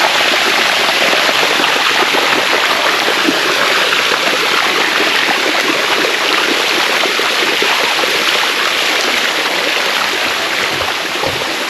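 Water of the Sticky Waterfall rushing down its rock cascade: a loud, steady, unbroken flow.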